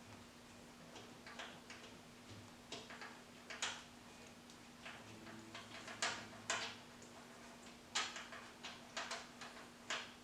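Hand ratchet clicking in short, irregular strokes as it backs out a cylinder head bolt, the clicks coming more often in the second half. A faint steady hum runs underneath.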